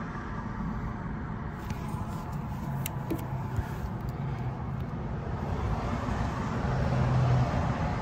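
Steady low rumble of road traffic with a faint engine hum, swelling as a vehicle passes about six to seven seconds in.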